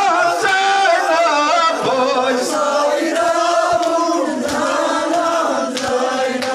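Men's voices chanting together in a sustained devotional chant.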